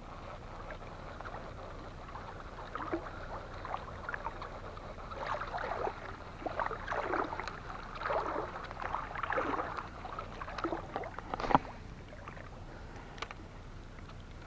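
Water sloshing and swishing around the legs of someone wading through floodwater, in a run of irregular splashy surges, with one sharp click near the end.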